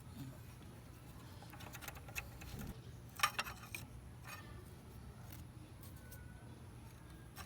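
A few light metallic clicks and scrapes as the thin, worn front brake pad is worked out of a motorcycle disc-brake caliper, the sharpest about three seconds in.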